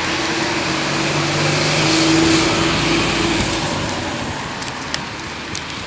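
Street traffic with a motor vehicle driving past close by: a steady engine hum that swells about two seconds in, then fades out.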